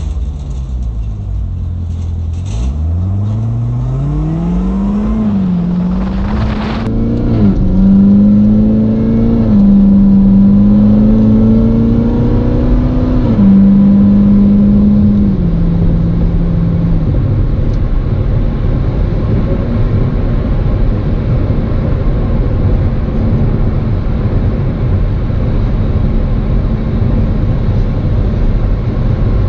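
2019 Corvette ZR1's supercharged 6.2-litre LT5 V8 accelerating, its pitch climbing and then dropping back at each of several upshifts, with a short crack at one shift. It then settles into a steady cruise drone with road noise.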